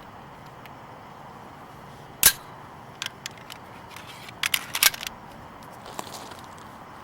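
A single loud gunshot a little over two seconds in, then a few light clicks, and a rapid string of quieter sharp cracks about two seconds later.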